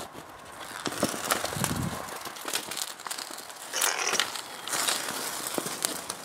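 Laptop burning fiercely after a high-current short circuit set it alight: continuous crackling and hissing with many sharp pops, loudest about four to five seconds in.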